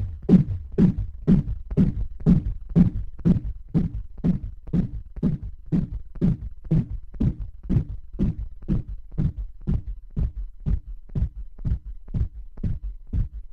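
Moog DFAM analog drum synthesizer running a steady sequence of thumping hits, about two a second, each a quick downward pitch drop, over a continuous low hum, processed through a Strymon Ola chorus.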